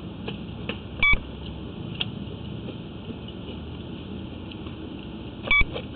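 Two short electronic beeps, one about a second in and one near the end, over a steady background hum and hiss.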